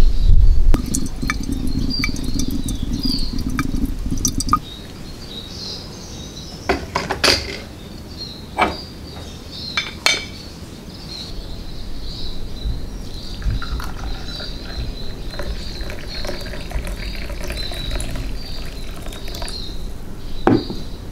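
A stainless steel Vietnamese drip coffee filter and glassware being handled, giving a few sharp metal and glass clinks. Near the end, coffee is poured from a glass carafe into a glass over ice.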